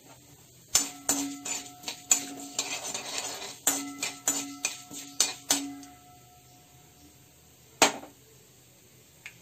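Metal spatula stirring tempering spices in oil in a metal wok, striking and scraping the pan so that it rings: a quick run of clangs and scrapes starting about a second in and stopping after about five seconds, then one more clang near the end.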